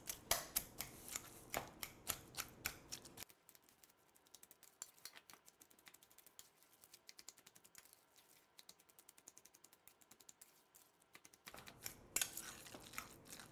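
Fork mashing cooked sweet potato in a metal bowl: a quick run of light clicks and taps as the tines hit the bowl. The taps grow very faint after about three seconds and pick up again near the end.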